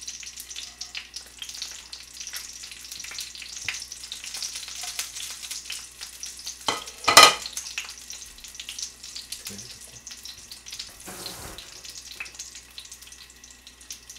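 Frozen king dumplings sizzling and crackling as they fry in a frying pan, a steady hiss full of small pops. A single sharp knock about seven seconds in is the loudest sound.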